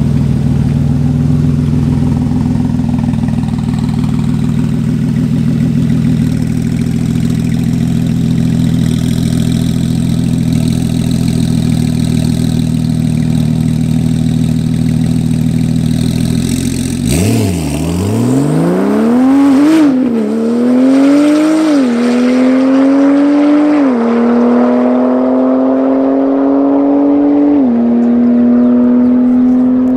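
Porsche 911 Turbo S twin-turbo flat-six running steadily at the start line for about seventeen seconds. It then launches, its pitch dipping and then climbing hard. Four upshifts follow, each heard as a sharp drop in pitch before the engine climbs again.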